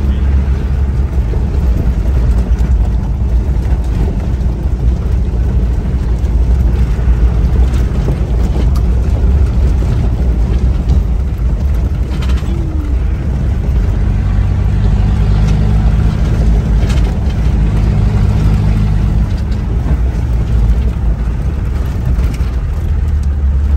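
In-cab noise of a Land Rover Discovery with a 200Tdi turbo diesel driving over a rough dirt trail: a steady, loud low engine drone, with knocks and rattles from the bumpy track.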